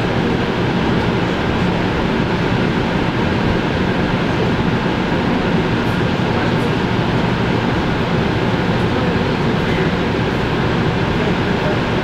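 Electric suburban train running at speed, heard from inside the carriage: a steady rumble and hiss with no clear rail-joint rhythm.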